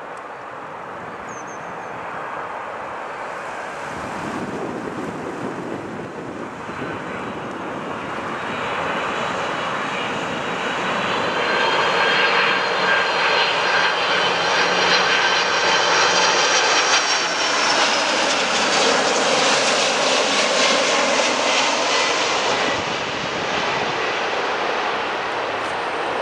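Boeing 747-400 four-engine jet airliner on landing approach. Its engine noise grows louder as it passes close by, with a high whine over the steady rush, and the whine drops slightly in pitch as it goes past. It then eases off as the aircraft descends toward the runway.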